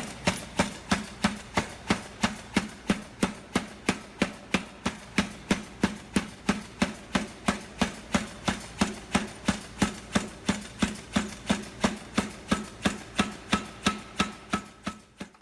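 A 200 lb Chambersburg air-powered utility forging hammer running steadily, its ram striking about three even blows a second.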